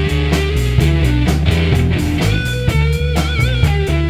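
Rock band playing: a bass line and guitar over a steady drum beat. In the middle a held high note wavers with vibrato.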